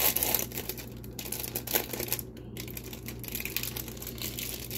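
Plastic wrapper of an individually wrapped processed cheese slice crinkling and clicking as it is peeled open, in quick irregular ticks that come thickest in the first second.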